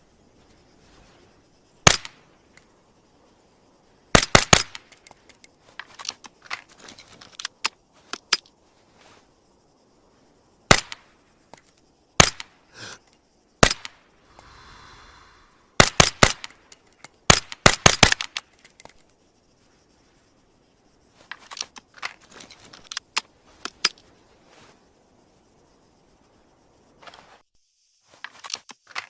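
High Standard Model HD .22 pistol firing, single shots and quick strings of two to four, with a short rattle near the middle. Softer metallic clicks of handling follow in the last part.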